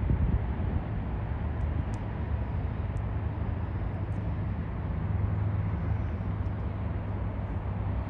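Steady low rumble of airport background noise, with distant jet aircraft and traffic blended together and nothing standing out.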